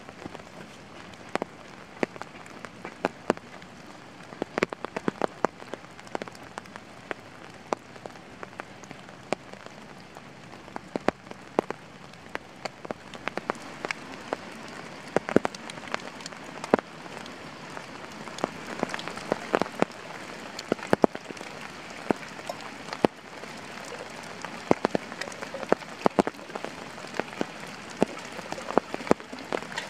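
Steady rain falling on a pond's surface and the grass and leaves along its bank, with many sharp, separate drop taps close by.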